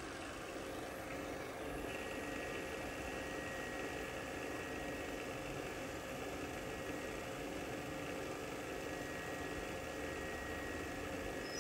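TOS Kuřim FNK 25 vertical turret milling machine running steadily, its spindle quill moving on power feed at a reduced feed rate: an even mechanical hum with a faint, steady high whine.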